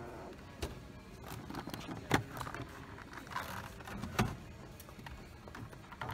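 Three short, sharp knocks spread a second or two apart as a hand handles a washing machine's glossy lid and front panel, over a low steady store background.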